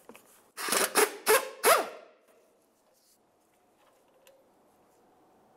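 Handheld power tool run in four short bursts about a second in, loosening the 13 mm bolts of a sway bar bracket, its motor pitch rising and falling with each pull of the trigger.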